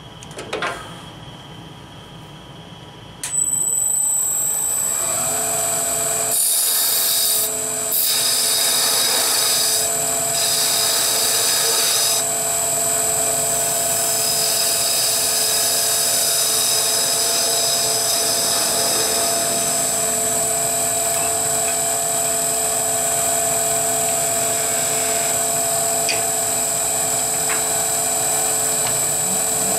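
Wood lathe switched on about three seconds in and running with a steady high whine, as a hand turning tool cuts a small wooden spinning-top body held in the chuck; the cutting hiss is strongest in stretches between about 6 and 12 seconds.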